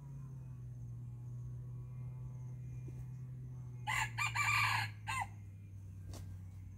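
A red junglefowl cock crows once, a short, loud crow of a few quick syllables about four seconds in, with fainter crowing near the start. A low steady hum runs underneath.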